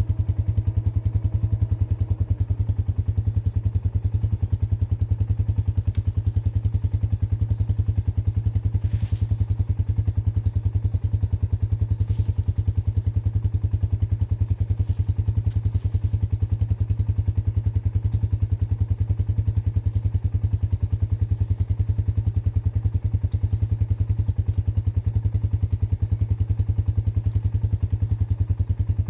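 Four-wheeler (ATV) engine running steadily at idle, with an even low pulse that holds the same pitch throughout, and a few faint clicks over it.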